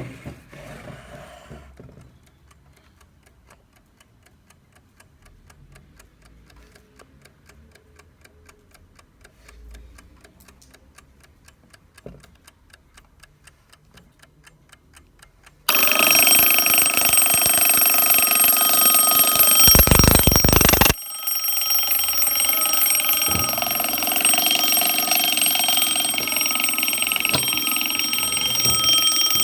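Junghans cuckoo alarm clock ticking softly, then about 16 s in its alarm goes off suddenly and rings loudly and steadily, with a brief louder noise near the 20-second mark.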